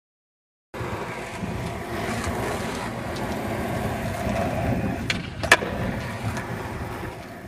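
Skateboard wheels rumbling steadily on rough asphalt, starting suddenly under a second in, with two sharp clacks of the board about half a second apart near the end, the second the loudest.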